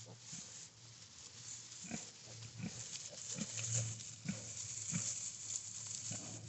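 A sow and her five-day-old piglets grunting: short grunts, about two a second.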